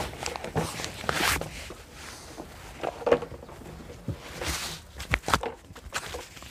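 Shuffling footsteps on dirt with the rustle and knocks of a backpack power sprayer being hoisted onto the back and its straps adjusted; the sprayer's engine is not running.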